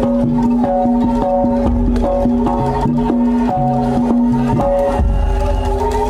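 Jaranan music played by an East Javanese gamelan ensemble: a steady held drone with a melody moving above it, over regular drum and metal percussion strokes.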